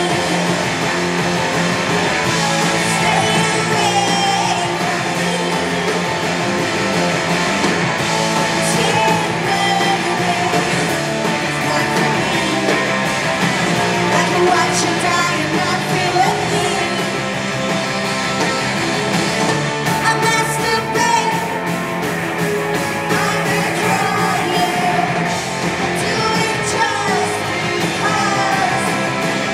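Punk rock band playing live: electric guitars and drums, with a singer.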